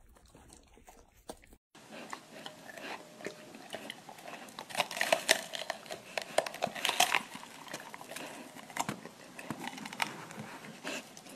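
Golden retriever biting and chewing a raw green bell pepper: crisp, wet crunches and crackles in an uneven run, loudest a few seconds in.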